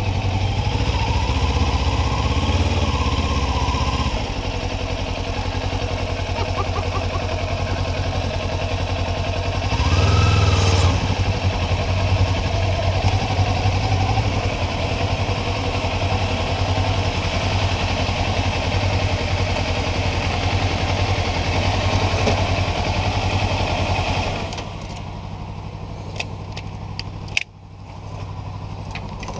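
Kawasaki Ninja parallel-twin motorcycle engine running while riding, its pitch rising and falling about ten seconds in. Near the end the engine sound drops to a lower level, followed by a few clicks and one sharp knock.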